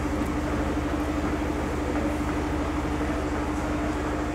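Steady mechanical hum over a low rumble, unchanging, with a constant mid-low tone.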